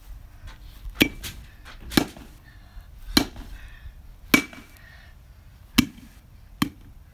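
A baseball bat whacking a carved pumpkin six times in quick succession, about one sharp hit a second, each with a brief ring after it.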